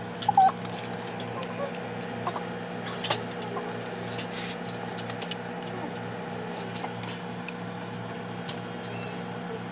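Steady low machine hum, with scattered faint clicks and taps and a brief hiss about four and a half seconds in.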